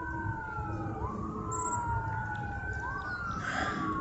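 Emergency vehicle siren wailing in the distance, its pitch sliding slowly down and then quickly back up every couple of seconds, with two overlapping sweeps.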